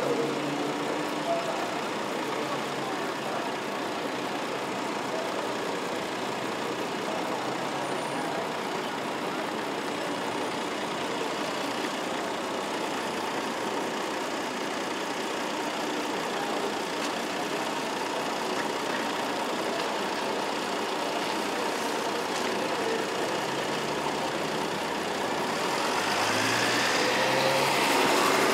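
Steady city street noise, a constant hum of traffic. Near the end it swells, with a sliding whine.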